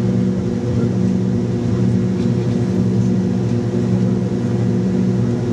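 Cabin drone of an MD-80 airliner climbing after takeoff: its rear-mounted Pratt & Whitney JT8D turbofans running steadily, a low hum with several steady tones over a rush of noise, even in loudness.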